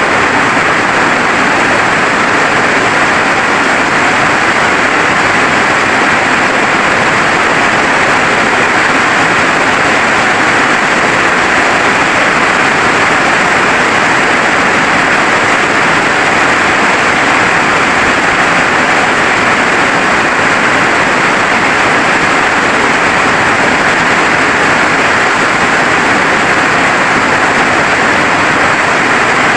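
Rain falling steadily: an even hiss of water with no breaks or changes.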